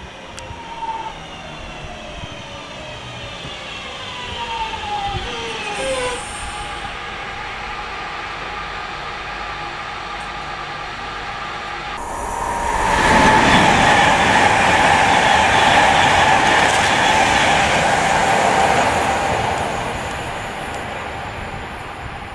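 Class 323 electric multiple unit braking into the platform, its traction motor whine falling steadily in pitch for about six seconds. About twelve seconds in, a loud rush of a fast train passing on the main line takes over, lasting about seven seconds before it fades.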